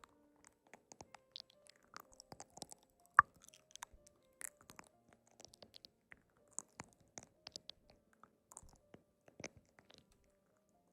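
Close-miked eating: irregular soft clicks and crunches of chewing, with one sharper crack about three seconds in, over faint background music.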